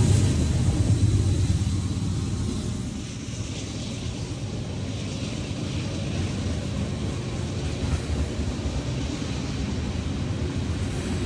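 Freight train with a diesel locomotive's engine fading in the first few seconds as it moves away. Then a steady low rumble of loaded coal hopper cars rolling past on the rails.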